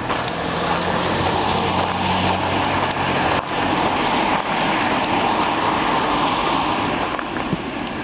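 Car driving past on a wet, slushy street: steady tyre hiss through the whole stretch, with a low engine hum under it for the first couple of seconds.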